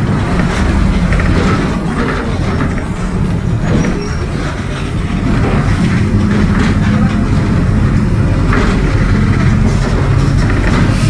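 Mercedes-Benz OF-1722M bus under way, its diesel engine running together with the growl of a noisy differential. The sound eases off about four seconds in, then the engine pulls steadily again.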